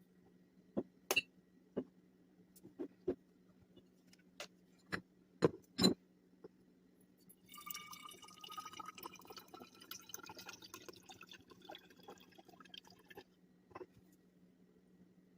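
Several sharp knocks and clinks as containers and items are handled and set down, then liquid runs into a container for about six seconds with a pitch that rises as it fills. A steady low hum sits under it throughout.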